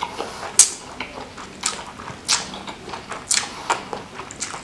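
Close-miked eating of rice vermicelli noodles in spicy broth: about six short, wet slurps and mouth smacks, spaced irregularly.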